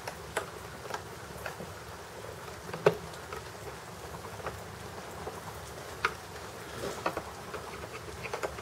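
Scattered light clicks and taps of an electric chainsaw's plastic housing and its screws being handled and fitted together, over a steady low hiss. The sharpest tap comes about three seconds in, another about six seconds in, and a quick cluster of small clicks follows near seven seconds and again near the end.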